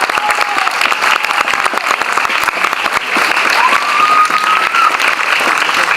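Audience applauding, a dense steady clatter of many hands clapping. Two thin high tones sound over it, the clearer one rising and then held for about a second near the middle.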